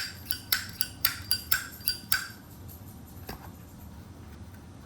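Zippo lighter being put back together: a quick run of about ten sharp metallic clicks and clinks with a short ring, as the insert goes into the metal case and the hinged lid is handled, stopping about two seconds in.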